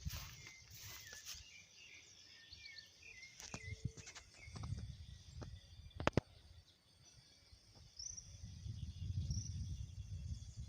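Small birds chirping outdoors, with low rumbling wind noise on the microphone and a sharp double click about six seconds in.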